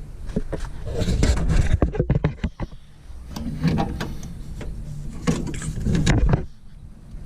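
Irregular knocks and clunks, with bunches of heavier rumbly handling noise in between.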